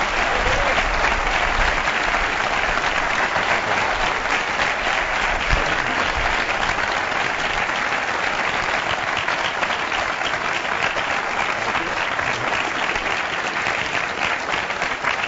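A large audience applauding steadily, the clapping easing off slightly near the end.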